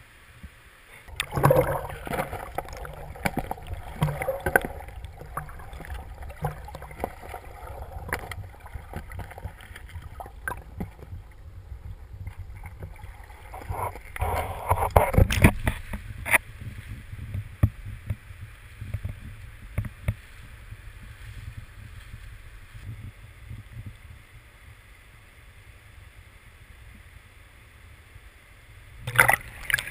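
Virgin River water heard in and around the shallows: a steady low rumble of moving water, with scattered knocks and clatters, busiest about two seconds in and again about fifteen seconds in. Near the end the water grows louder and more splashy.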